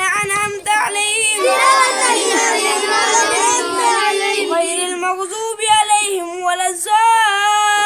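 A boy's voice reciting Arabic prayer verses aloud in a chanted melody, holding long notes that rise and fall between short breaks.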